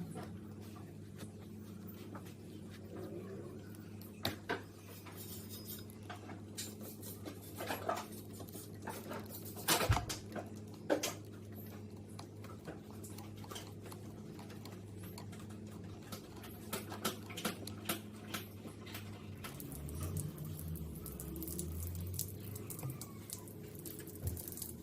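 Scattered light clicks and metallic clinks of plumbing parts being handled and fitted, with a sharper knock about ten seconds in, over a steady low hum.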